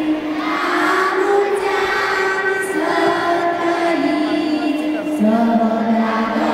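A group of children singing a Christmas song together in unison, a slow melody of long held notes.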